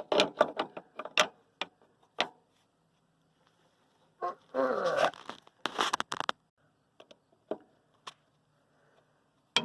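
Hammer striking a wrench on a tractor bolt: a quick run of sharp metallic taps in the first two seconds, then a few scattered single taps. Near the middle there is a short cry with falling pitch and a brief scraping rush.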